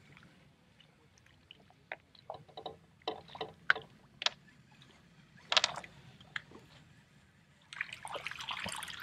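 Scattered small clicks, taps and water drips as a just-caught small largemouth bass is handled and unhooked in an aluminium boat. A louder rushing noise comes in near the end.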